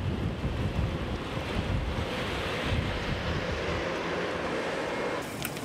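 Storm wind gusting and buffeting the microphone, a rushing noise with uneven low rumbling; it changes character near the end.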